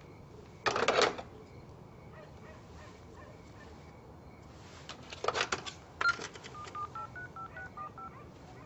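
Phone keypad tones: a quick run of about ten short beeps at slightly different pitches in the second half, as a phone number is dialed. Two brief rustles come before them.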